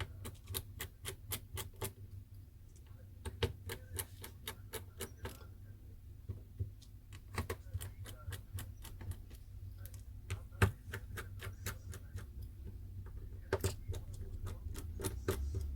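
Runs of quick, small clicks and ticks as a small screwdriver takes out the tiny screws holding a smartphone's inner frame, coming in several bursts with short pauses between. A faint steady low hum lies underneath.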